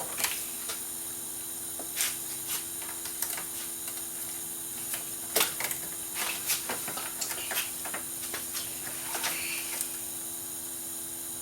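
Scattered light clicks and taps of plastic parts being handled over a steady electrical hum, with a sharper knock about five seconds in.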